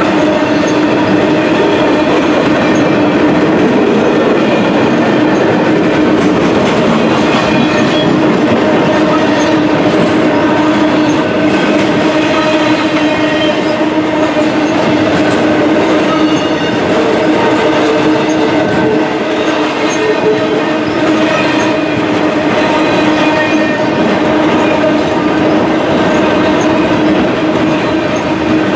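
Intermodal freight train's flatcars carrying semi-trailers rolling past at steady speed: continuous wheel-on-rail rumble and clatter with a steady humming tone over it.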